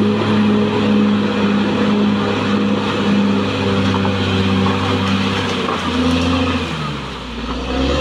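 Caterpillar D6R XL bulldozer's diesel engine running steadily at working revs while the dozer pushes earth. About six seconds in its pitch drops and it quietens briefly, then it picks back up near the end.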